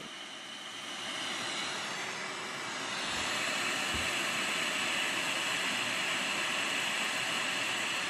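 JBC hot-air rework station blowing a steady rush of air at high airflow (70%), reflowing the solder of a new USB-C charging connector onto the phone board; it gets a little louder about three seconds in.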